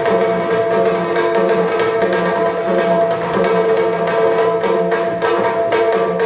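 Yakshagana ensemble music: chande and maddale drums playing rapid, driving strokes over a steady drone, accompanying dance.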